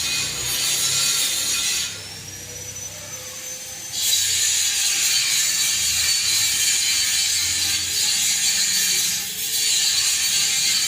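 Panasonic F-560Z2 56-inch industrial ceiling fan running, a steady mechanical noise that drops quieter for about two seconds near the start, then comes back.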